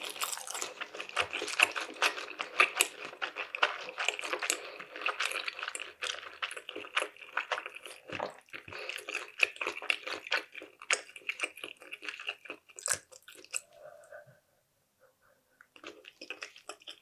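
Close-miked chewing of sushi: dense wet clicking and smacking mouth sounds that thin out after about twelve seconds, stop briefly, and start again near the end.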